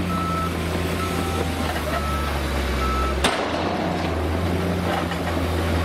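Heavy eight-wheeled dump truck's diesel engine running steadily as its body is raised to tip sand. A short warning beeper sounds about once a second for the first three seconds, stopping after a sharp click.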